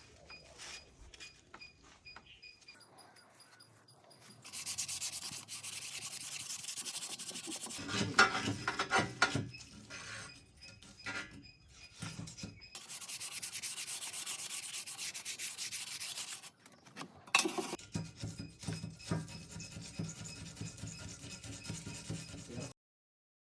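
Rust being scraped off steel by hand with an abrasive hand tool: runs of steady, hissy scrubbing several seconds long, with rougher, louder strokes between them. It cuts off abruptly near the end.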